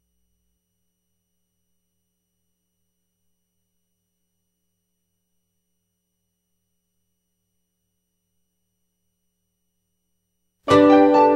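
Silence, then instrumental intro music starts abruptly near the end with several sustained pitched notes sounding together.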